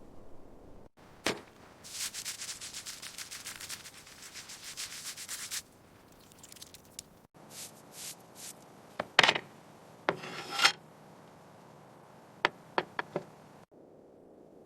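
Rapid back-and-forth rubbing or sanding strokes on a surface for a few seconds, then several separate sharp knocks and clicks of hand work on metal parts.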